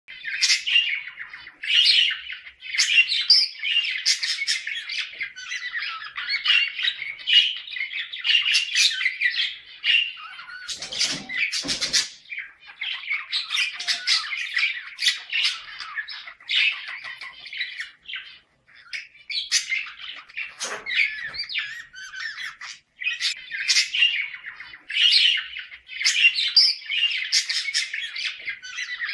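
A pair of budgerigars warbling and chattering nonstop, with many short sharp squawks mixed into the chatter. This is budgie mating chatter, the kind played to bring pet budgies into breeding condition.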